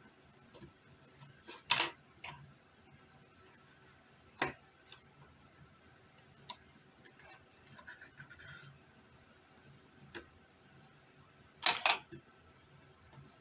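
Plastic case clips of a Samsung Galaxy Tab 4 snapping loose as a pry tool works along its edge: scattered sharp clicks, a brief scraping, and a loud double snap near the end.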